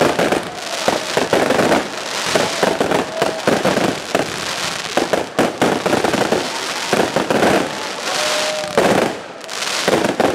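Fireworks display: aerial shells bursting in rapid succession, with dense crackling from the crackling stars and an almost continuous run of bangs, easing briefly near the end.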